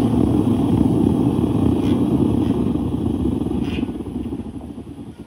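Propane burner of a small backyard metal-melting furnace running with a steady rush. It fades over the last couple of seconds and cuts out near the end as the propane tank valve is shut.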